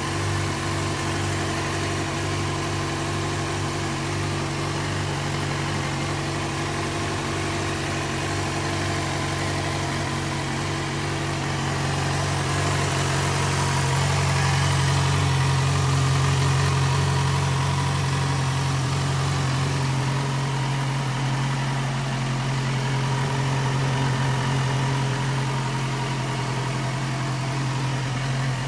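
Yamaha XJ6F Diversion's 600cc inline-four engine idling steadily, a little louder about halfway through.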